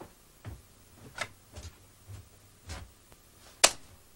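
Footsteps indoors: a few soft steps about half a second apart, then one sharp click near the end.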